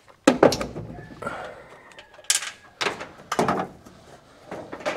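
A string of sharp metal knocks and rattles from a steel breaker-panel cover and door being handled and taken off.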